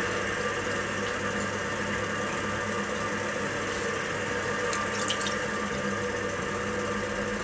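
Potter's wheel running with a steady hum while wet, water-lubricated clay swishes under the potter's hands as he pushes down into its centre to open it out. A few faint wet clicks come about five seconds in.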